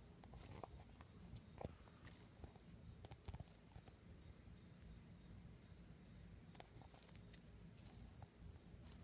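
Faint steady high trill of crickets singing, with a few soft clicks about a second and a half and three seconds in.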